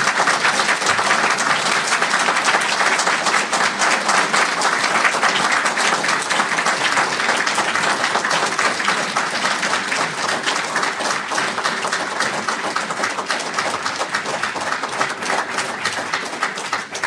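Audience applauding: a long, dense round of clapping that eases slightly toward the end.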